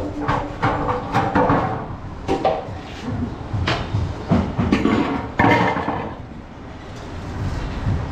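A butcher's cleaver chopping through goat meat and bone, a string of irregular hard strikes that thin out after about six seconds.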